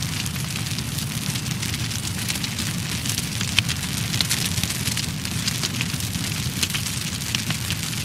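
Fire burning, with frequent sharp crackles and pops over a steady low rumble.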